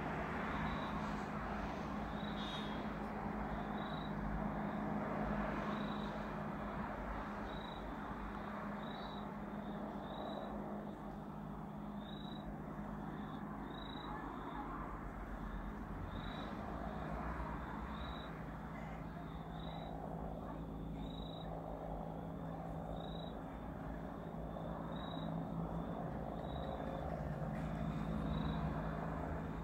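Bell 412EP helicopter passing at a distance, heard as a steady low drone of rotor and engine. A short high chirp repeats about every one and a half to two seconds over it.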